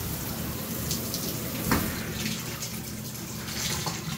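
Shower water running steadily into a fibreglass bathtub, with one sharp click about a second and a half in. The flow dies down near the end, leaving a trickle from the tub spout.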